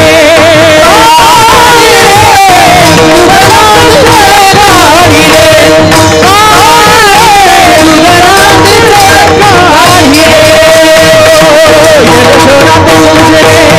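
Marathi devotional kirtan singing: a voice sings a wavering, ornamented melody over steady held harmonium notes, with hand-drum accompaniment.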